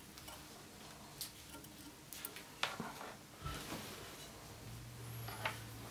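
Faint scattered clicks and light taps of small tools being handled during soldering; a low hum comes in about halfway through.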